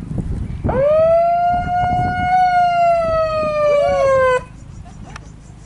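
A single long horn blast lasting about three and a half seconds. It swoops up at the start, then slowly sags in pitch before cutting off suddenly. The horse's hoofbeats thud underneath.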